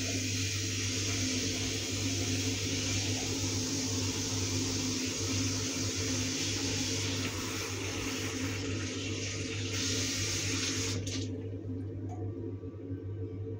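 Bathroom sink tap running into a small bin as it is washed by hand, the rush of water cutting off abruptly about eleven seconds in as the tap is turned off. A steady low hum continues underneath.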